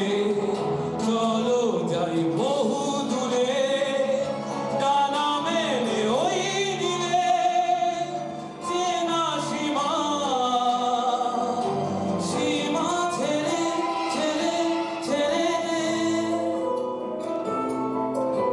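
A man singing into a microphone over instrumental backing music, his voice gliding up and down in pitch.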